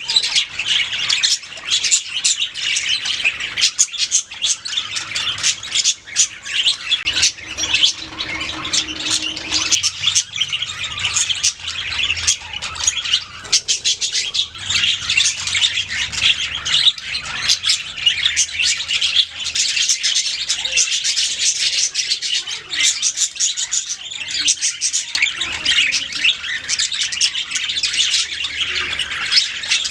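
Several budgerigars chirping and warbling without a break, a dense stream of quick, high chirps.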